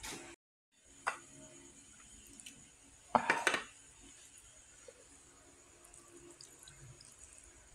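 Chopsticks and a metal spoon knocking against a ceramic bowl of noodles, with a short clatter about three seconds in and a single click about a second in, then faint scraping as the noodles are stirred.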